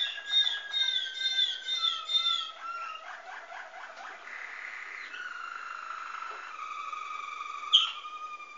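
Waterslager song canary singing: a quick rolling series of repeated whistled notes that steps down in pitch, a burbling passage, then long, held, flute-like tones. A single sharp click sounds near the end.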